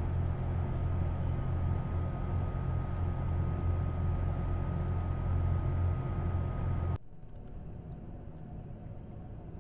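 Steady low rumble and hiss with a faint steady high tone, picked up by the trail camera's microphone; about seven seconds in it cuts off abruptly to a quieter, even hiss.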